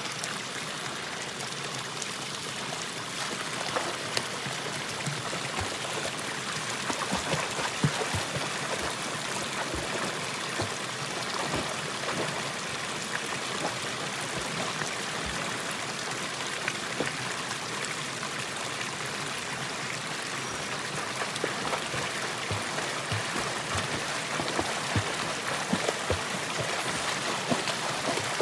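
Spring water pouring steadily from bamboo pipes into a shallow pool, with splashing from a person swimming in it; the splashes grow busier and louder in the last few seconds.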